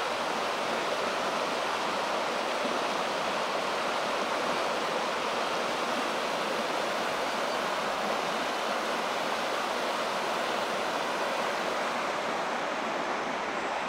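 Shallow river running fast over a stony bed: a steady rush of water.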